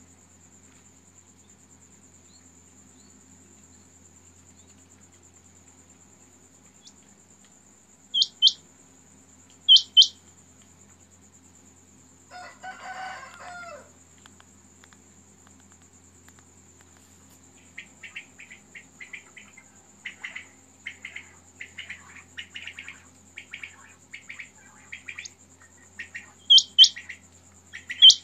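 Caged quail calling: sharp, high calls in quick pairs about eight and ten seconds in and again near the end, with a run of quieter rapid chirps in between. A short harsh sound comes about twelve seconds in, and a steady high cricket trill runs underneath.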